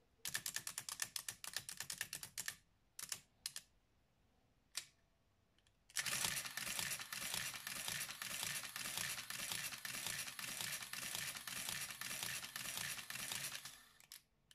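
Olympia mechanical adding machine, opened up, clattering as its mechanism runs. A quick burst of rapid clicks lasts about two seconds, then come a few single clicks. From about six seconds in, a dense run of fast mechanical clatter goes on for about eight seconds and stops near the end.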